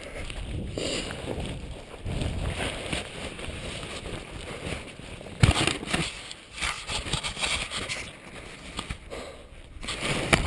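Rustling, rubbing and knocking of an action camera being handled, with one sharp knock about five and a half seconds in and smaller knocks after it.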